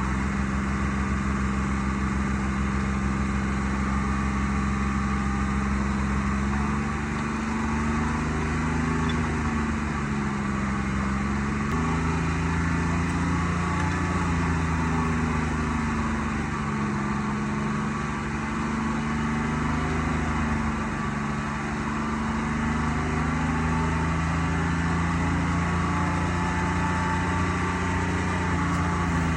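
Forwarder's diesel engine running continuously, its speed dipping and rising every few seconds as the machine works picking through logs.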